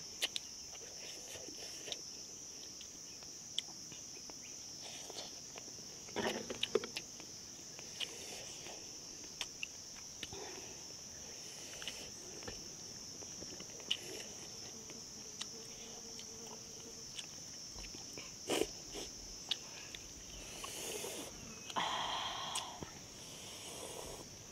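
Insects droning steadily with a continuous high-pitched hum, with scattered light clicks and knocks over it.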